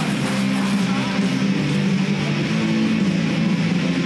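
Music led by strummed electric guitar.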